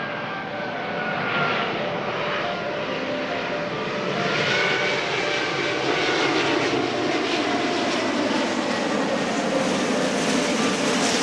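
Jet airliner engines running as the aircraft passes: a broad rush of engine noise that grows louder about four seconds in, with high whines that rise and fall in pitch.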